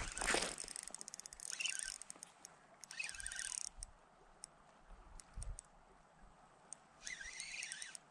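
A bird calling in a few short calls, with curved rises and falls in pitch and quiet between them, the last call near the end.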